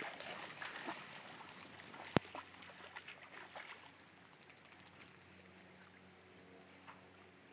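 Lake water lapping and trickling at the shoreline, with many small clicks and one sharp click about two seconds in. Faint steady music tones come in over the second half.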